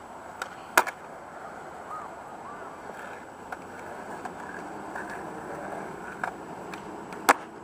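Skateboard wheels rolling over a concrete skatepark with a steady rumble, broken by two sharp clacks of the board, about a second in and, loudest, near the end, and a few lighter ticks.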